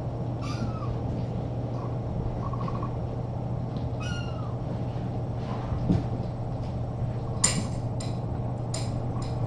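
A cat meowing twice, short calls that bend in pitch, about half a second and four seconds in. Near the end come several sharp clinks roughly half a second apart, over a steady low hum.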